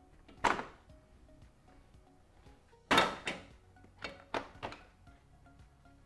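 Plastic retaining clips of a Ford Bronco's front grille snapping loose as the grille is pulled free: one sharp snap about half a second in, then a cluster of snaps between three and five seconds in. Soft background music plays underneath.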